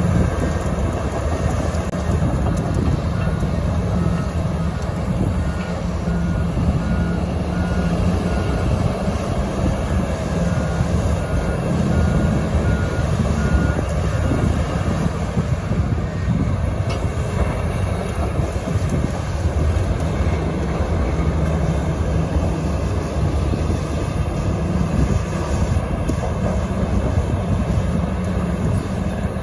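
Heavy diesel mining machinery (excavators, a bulldozer and haul dump trucks) running and working together, a steady deep engine rumble. Through the first half a vehicle's reversing alarm beeps at an even pace.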